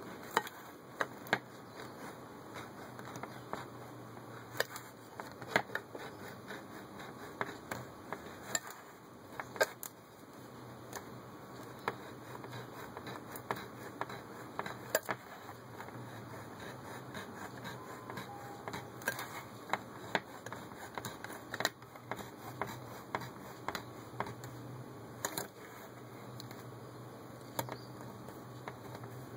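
Side-cutting safety can opener cranked around the rim of a tin can: irregular sharp metallic clicks, about one a second, over a soft continuous scraping of the cutting wheel on the can's rim.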